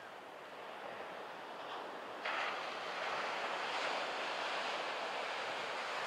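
Surf washing in under a strong wind blowing on the microphone. The noise jumps suddenly louder about two seconds in and stays up.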